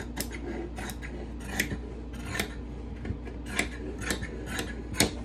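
Fabric shears snipping through fabric in a string of short, sharp cuts, about two a second in an uneven rhythm, with the sharpest cut near the end.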